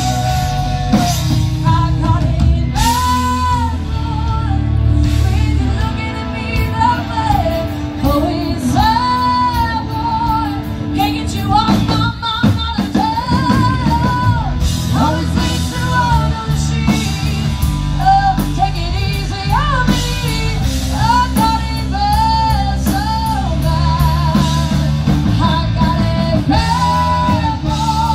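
Live rock band playing: drums, bass and electric guitar under a lead melody that bends and swoops up and down.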